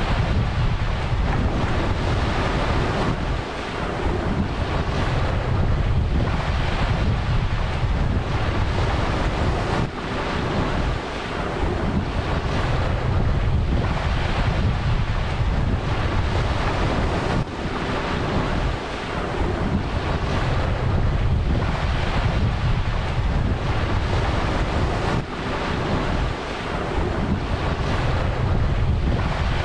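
Ocean surf breaking and washing in a continuous roar, swelling and easing about every seven seconds, with wind rumbling on the microphone.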